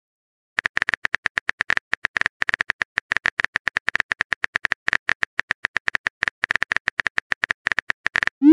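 Phone keyboard typing sound effect from a texting-story app: a rapid, uneven run of light clicks as a message is typed, ending in a short rising blip as it is sent.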